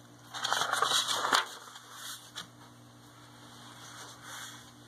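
Paper pages of a picture book being turned and the book handled. A loud rustle lasts about a second near the start, and fainter rustles follow.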